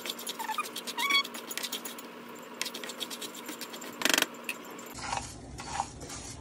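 Wooden spatula stirring dry rice as it toasts golden in a little oil in a nonstick frying pan: the grains rattle and scrape against the pan in quick strokes. There is a louder burst of scraping about four seconds in.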